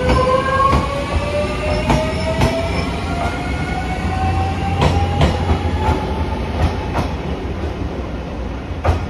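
JR 383 series electric train pulling away and accelerating: its traction motors whine in tones that climb steadily in pitch. Its wheels clack over rail joints, mostly in pairs a fraction of a second apart.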